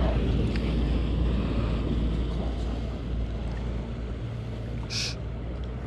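Motorboat engine running steadily as the boat cruises past, a low hum mixed with wind buffeting the microphone. A brief high hiss about five seconds in.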